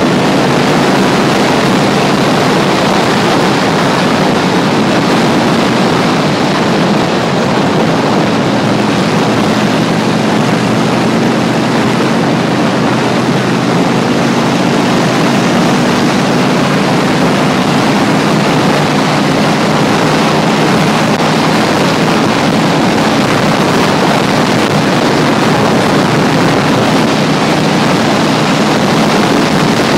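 Motorcycle running steadily at speed, its engine note under a loud, steady rush of wind on the microphone.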